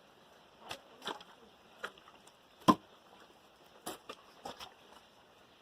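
Pieces of firewood knocking against each other as they are stacked for a bonfire: about ten irregular short knocks, the loudest a little under halfway through.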